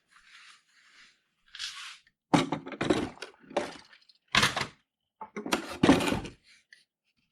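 Objects being handled: a run of knocks and clunks in three clusters, the sharpest a single knock about four and a half seconds in, after a few faint scraping or brushing sounds.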